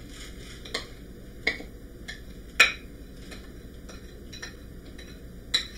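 Metal spoon clinking against a mixing bowl and metal pie plate while buttered graham cracker crumbs are scraped out into the pan: a few scattered sharp clinks, the loudest about two and a half seconds in.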